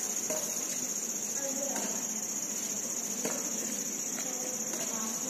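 Crickets chirring in a steady, unbroken high-pitched trill, with faint distant voices underneath.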